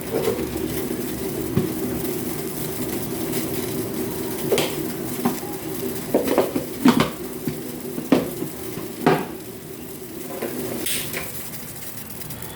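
Metal spoon and pot clinking and knocking a few times while something is stirred, over a steady low hum that fades out near the end.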